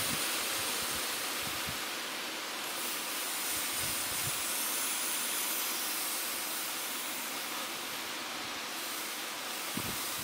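Steady hiss of a beehive treatment vaporizer blowing medicated vapour into the hive to kill varroa mites.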